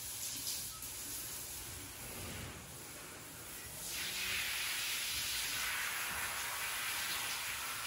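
Water spraying from a garden hose nozzle onto a horse, a steady hiss that gets louder and brighter about four seconds in.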